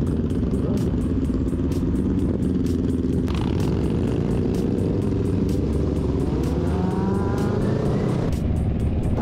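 Motorcycle engine running on the road over a steady low wind rumble, its pitch climbing as it accelerates in the second half. Background music with a steady beat runs underneath.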